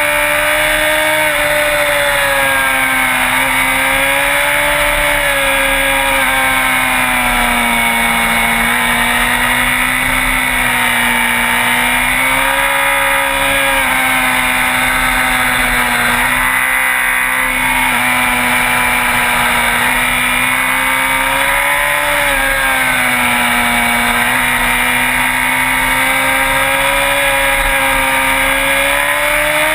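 Sport bike engine running continuously under way, its pitch rising and falling gently as the speed changes.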